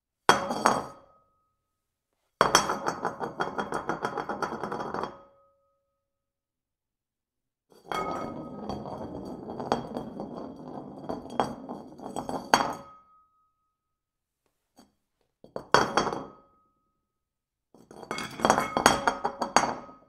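A porcelain bowl dropped on a hard surface five times. Each drop starts with a sharp clink and runs on into a rattling clatter with a ringing tone. The first is brief, the second lasts about three seconds, and the third, the longest, about five.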